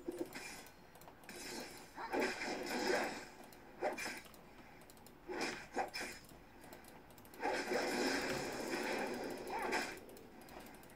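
Typing on a computer keyboard: runs of rapid key clicks in several bursts, the longest near the end, with short pauses between them.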